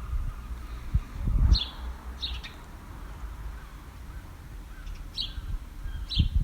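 Wild birds calling: four short, high chirps in two pairs, about three seconds apart, over a low rumbling noise that swells briefly twice.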